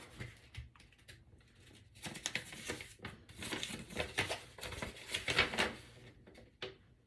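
Paper papers rustling and crinkling with light clicks and taps as the papers from a cosmetics package are handled. Sparse at first, then busy from about two seconds in until near the end.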